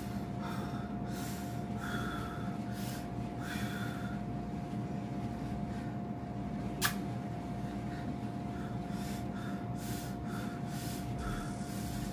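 A person taking repeated short, sharp breaths and sniffs, a reaction to the burn of very hot sauce, over a steady hum. A single sharp click comes about seven seconds in.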